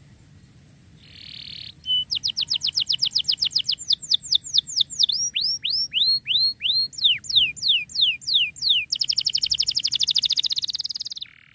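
Domestic canary singing in repeated tours. First comes a fast run of downward-sweeping whistled notes, which slows through the middle, then a very fast rolling trill near the end that stops abruptly.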